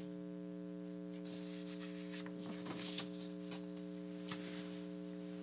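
Air conditioner running with a steady, even hum of several stacked pitches, with a few faint soft rustles over it.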